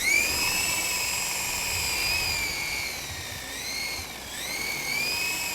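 Small remote-control toy helicopter's electric motor and rotors whining in flight. The pitch jumps up sharply at the start, sags and dips twice around the middle, then climbs again.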